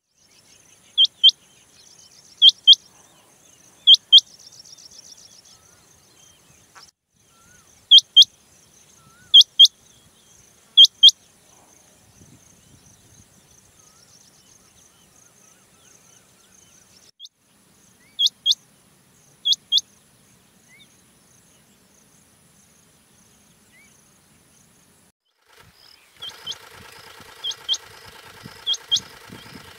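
Rain quail calling: short, sharp notes that rise in pitch, given in pairs about every one and a half seconds, in runs with long pauses between. A faint steady high tone lies under them, and an engine starts running about four seconds before the end while the calls go on.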